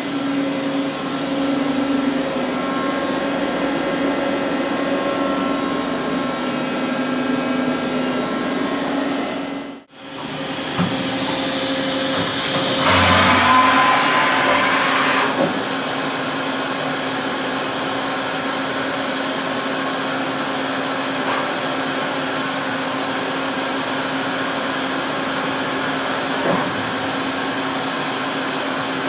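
Doosan V550 CNC vertical turning lathe running: a steady machine hum with a constant low tone. The sound cuts out sharply about ten seconds in, then a louder whirring swells for a couple of seconds before it settles back to the steady hum.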